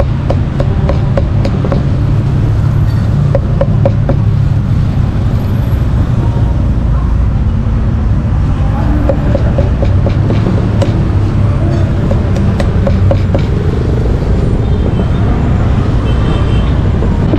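A cleaver chopping pork on a block in runs of sharp knocks, about three a second at times, over a steady low rumble of street traffic.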